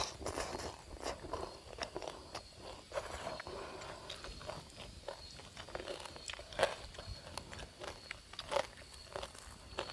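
Close-up chewing and crunching of crispy fried pork belly: irregular crisp crackles as the puffed skin breaks, with a sharper crunch about six and a half seconds in and another near eight and a half.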